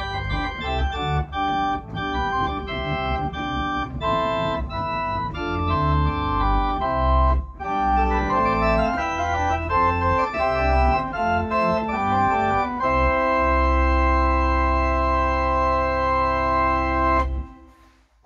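Makin Westmorland digital organ playing chords over a deep bass line, with a brief break about halfway. Near the end it holds the piece's final chord for about four seconds, then releases it and the sound dies away quickly.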